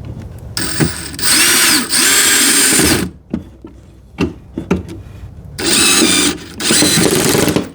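Power drill driving screws into a glued-up cabinet back panel, run in bursts: a brief one about a second in, a run of about two seconds, then two more near the end. The motor's pitch wavers as the screw takes load and seats.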